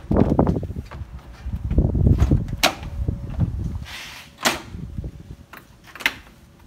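Front grille of a 2016 Jeep Wrangler JKU being pulled off by hand: dull knocks and rubbing, with a few sharp snaps as its bottom retaining clips pull loose.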